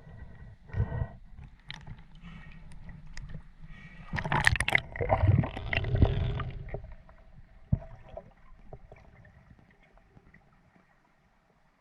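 Water splashing and gurgling at a spearfisher's mask and snorkel, with a loud burst of splashing about four to six seconds in. It then fades to quiet.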